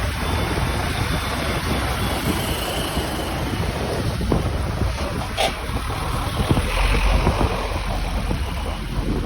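Wind buffeting the microphone: a loud, steady rushing with a heavy low rumble and no let-up, and a brief high squeak about five seconds in.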